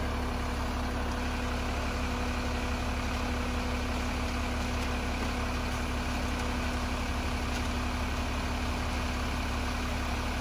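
Concrete mixer truck's diesel engine running steadily with a constant hum while the truck discharges concrete down its chute.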